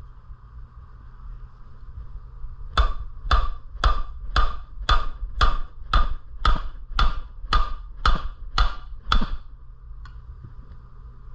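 Thirteen evenly spaced hammer blows on metal, about two a second, each with a short ring, striking at the seized flywheel and crankshaft of a Predator 212cc engine to try to break them apart.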